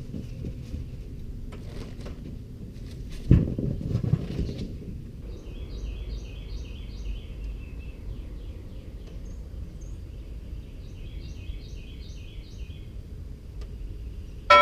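A songbird singing two runs of quick repeated chirps, about four a second, over a steady low rumble, with a single knock about three seconds in.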